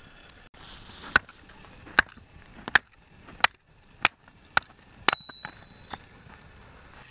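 Hatchet chopping, splitting a short log into kindling on a stone block: about eight sharp strikes, one every half second to a second. One blow, about five seconds in, gives a brief metallic ring.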